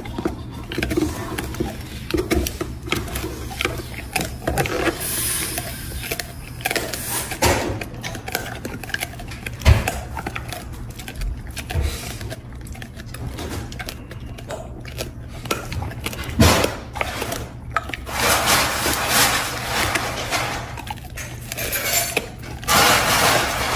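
Golden retrievers chewing on chew treats: irregular crunches, clicks and gnawing, with a paper box rustling several times, longest about three-quarters of the way through.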